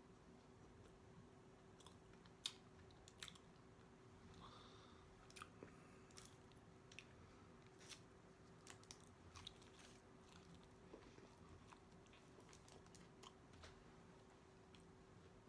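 Faint, close-up chewing of corn-tortilla tacos: soft wet mouth clicks and smacks scattered irregularly, over a faint steady hum.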